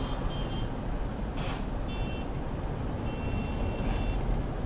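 Steady road and engine noise of a car driving on a highway, heard from inside the cabin. Several short high-pitched electronic beeps sound over it, one held for about a second near the end, and there are two brief swishes.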